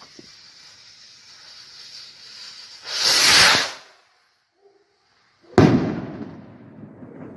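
Firework rocket salute. A steady high fizz gives way about three seconds in to a loud rush of noise lasting about a second. A sharp loud bang follows about two and a half seconds later and trails off slowly.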